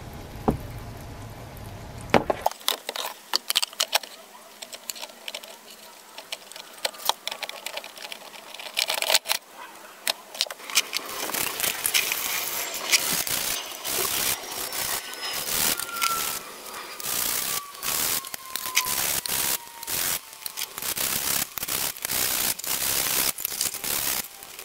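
Bubbles fizzing in a rust-removal bath. After about two and a half seconds this gives way to running water splashing while rusty steel machete parts are rinsed and handled under it, with many sharp metallic clinks, knocks and scrapes.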